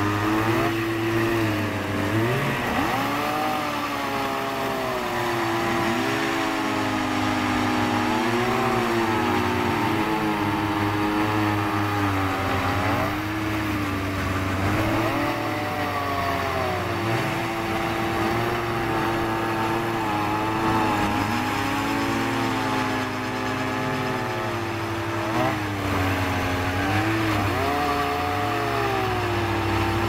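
Gas-powered ice augers' small engines running at high revs as they bore holes through river ice, more than one at a time. The engine pitch sags and climbs again several times as the bits bite into the ice and break through.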